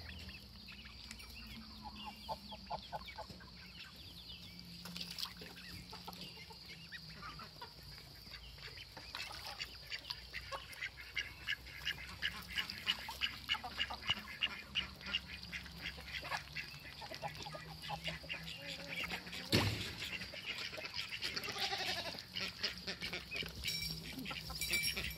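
Four-week-old ducklings peeping and calling in quick runs of short, high notes, busiest in the second half. A single sharp knock comes near the end.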